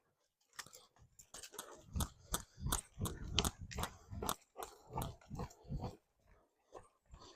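A dog reverse sneezing: a quick, irregular run of short, noisy inhalations, several a second, starting about a second in and dying away near the end.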